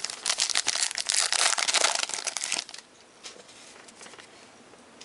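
Foil wrapper of a football card pack being torn open and crinkled by hand for almost three seconds, then a few faint ticks as the cards are handled.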